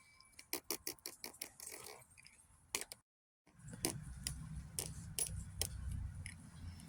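Scattered light clicks and taps at irregular intervals. The sound drops out completely for about half a second around three seconds in, then the clicks return over a low rumble.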